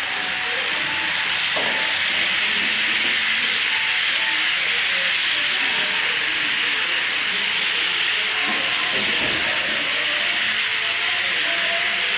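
HO-scale model freight cars rolling past close by: a steady hiss of metal wheels running over the track.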